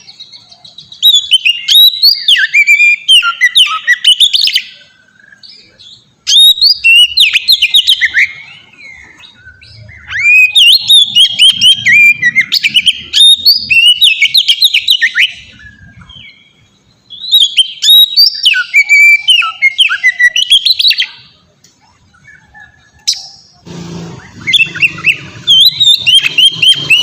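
Oriental magpie-robin (kacer) singing: phrases of quick, varied whistles and chirps in five bursts with short pauses between them. A low rumble joins near the end.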